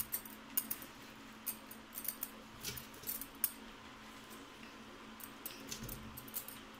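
Watermelon chunks being dropped by hand into a plastic mixer-grinder jar: scattered light taps and clicks against the plastic, irregularly spaced.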